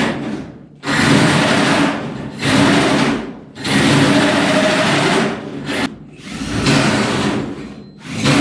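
Handheld power tool run in repeated bursts of one to two seconds with brief pauses between them.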